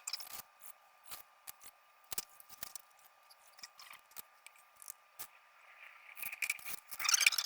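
Scattered light clicks and scrapes of hand work on freshly set patio tile, thickening into a steady scraping near the end.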